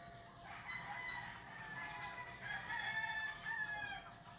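A rooster crowing, with drawn-out pitched calls that are loudest past the middle.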